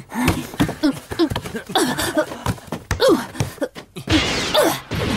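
Boys' voices in short shouts and laughs during a football kickabout, with a few sharp thuds of the ball being kicked.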